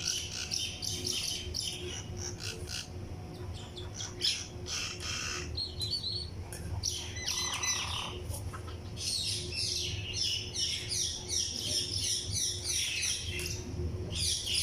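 Small birds chirping in quick, high-pitched series, densest in the second half, over a low steady rumble.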